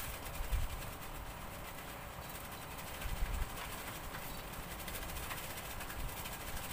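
Wind buffeting the microphone: a steady hiss with low rumbling gusts about half a second in, around three seconds in and again near the end.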